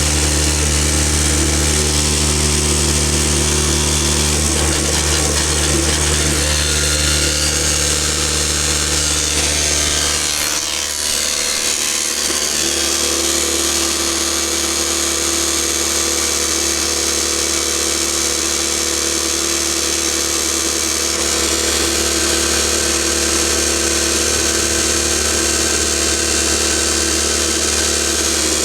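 Electric non-air drywasher (Backcountry Tornado F2) running steadily during its clean-out, a continuous mechanical hum. About ten seconds in the hum shifts and its lowest tones weaken, then it runs on evenly.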